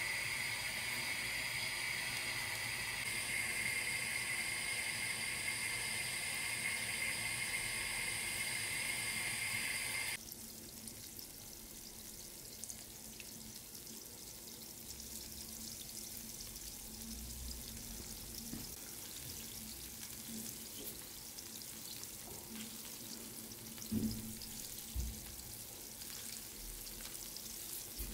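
Cottage-cheese dough balls frying in shallow oil in a skillet, an even sizzle with fine crackles. For the first ten seconds a steady high-pitched hum sits over it and cuts off suddenly, leaving the quieter sizzle; two low thumps come near the end.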